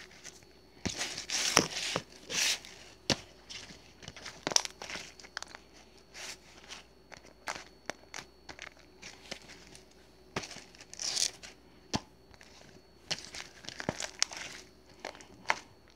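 Irregular crinkling and rustling with scattered sharp clicks and taps, the louder rustles coming around one and a half, two and a half and eleven seconds in.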